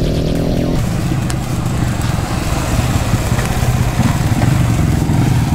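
Yamaha FZ150's single-cylinder four-stroke engine running close by as the bike rolls off slowly, growing a little louder about four seconds in. Music cuts off about a second in.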